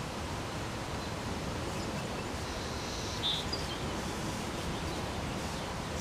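Steady outdoor background noise, with a single short, high bird chirp about three seconds in.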